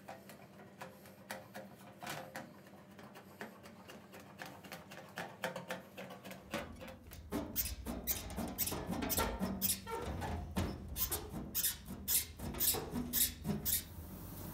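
Hand tin snips cutting a sheet of aluminium, a run of sharp snips that come faster and louder in the second half.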